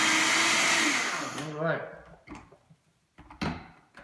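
Vitamix blender grinding dry whole oats into oat flour at high speed, switched off about a second in, its motor winding down with a falling pitch. A few short knocks follow.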